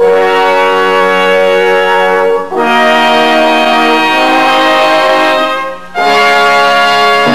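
Instrumental background music of long held chords, changing chord after brief breaks about two and a half and six seconds in.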